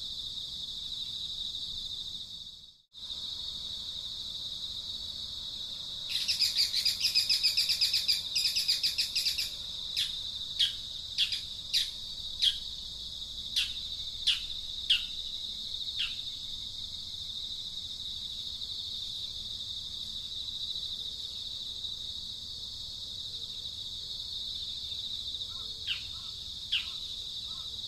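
Outdoor ambience of a steady high insect drone, with a loud rapid pulsing trill for about three seconds near the start. It is followed by a quick run of about a dozen short, sharply falling bird chirps, and a few more chirps near the end.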